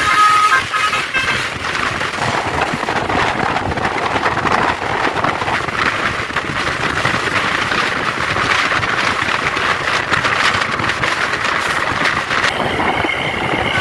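Loud rush of a bus passing on the road, engine and tyre noise blended into an even roar. A multi-tone telolet musical air horn trails off in the first second, and its tones start up again about a second before the end.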